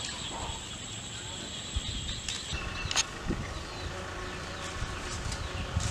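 A steady high-pitched chorus of insects, which cuts off abruptly about two and a half seconds in, over a low rumble. A single sharp click follows about three seconds in.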